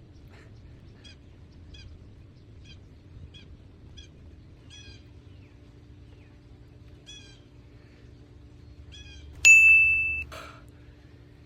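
Bird chirping repeatedly, about two chirps a second at first and then scattered, over a faint steady hum that starts about halfway. Near the end a single loud, steady high tone sounds for under a second.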